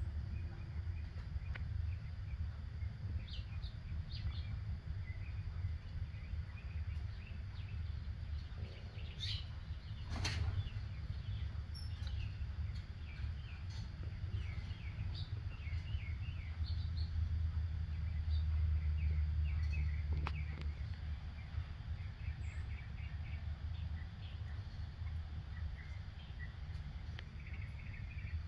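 Small birds chirping in short scattered calls over a steady low rumble that swells for a couple of seconds past the middle, with a sharp click about ten seconds in.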